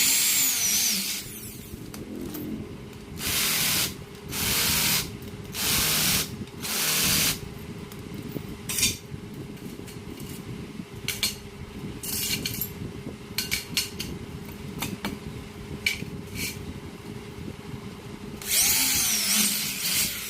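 Electric drill running with a steady hum while its bit cuts into aluminium in several loud bursts of about a second each, some with a high squeal. Between the bursts the drill runs on with scattered sharp clicks.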